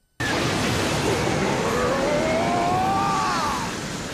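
Anime power-up sound effect for the opening of the Eight Gates: a loud rushing burst that starts suddenly, with a man's long yell rising in pitch over it and breaking off near the end.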